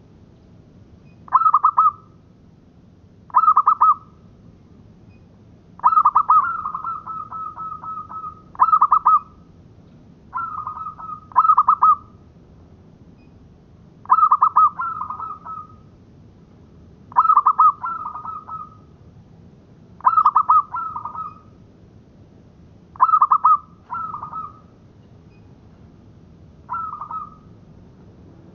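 Zebra dove (perkutut) cooing: about a dozen short song phrases of rapid stuttering notes, repeated every two to three seconds. One phrase about six seconds in runs on into a longer trailing series of quick notes.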